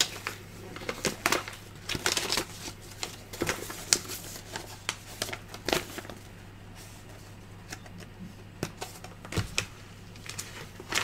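Paper and cardboard packaging being handled by hand: irregular rustles, clicks and light knocks, quieter for a couple of seconds past the middle, with a dull knock near the end and then the crackle of a paper instruction leaflet being unfolded. A faint steady low hum sits underneath.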